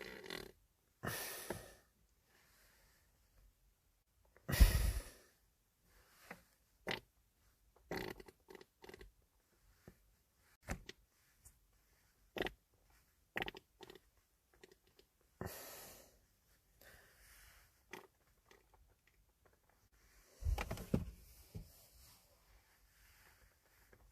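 A string of short wet farts separated by silence. The loudest and deepest comes about four and a half seconds in, and a quick cluster comes near the end.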